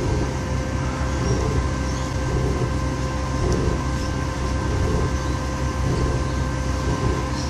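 Steady rush of gas burners, the torch flame heating the aluminium die and the lit melting furnace, with a steady hum. Over it, steel wool is rubbed across the hot die face in repeated strokes, the steel wool sparking in the flame.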